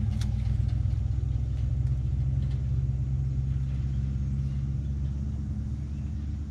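Steady low mechanical rumble, like a motor running, with a few faint clicks near the start.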